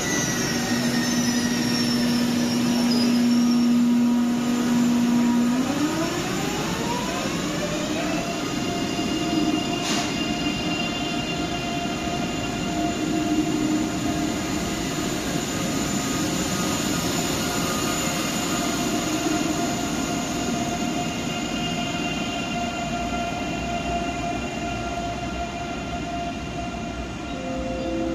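Deutsche Bahn ICE electric train pulling out of the platform. Its electric drive hums on one steady note, whines up in pitch over about three seconds as the train accelerates, then holds a steady whine over rail noise. A single sharp click comes about ten seconds in.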